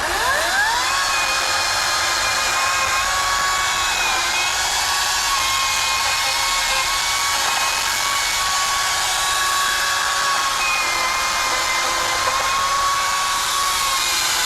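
Electric chainsaw spinning up with a quick rising whine, then running steadily at high speed as it cuts palm fronds, its pitch sagging slightly a few times under load.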